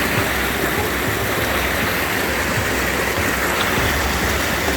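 River water rushing steadily, an even noise without breaks.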